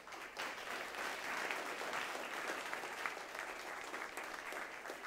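Audience applauding, many people clapping at once, with a burst at the start that holds steady and begins to thin near the end.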